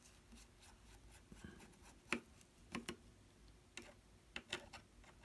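Faint, irregular clicks and ticks of a small screwdriver turning out the pocket clip screws in the handle of a Cold Steel Recon 1 folding knife, more frequent from about two seconds in.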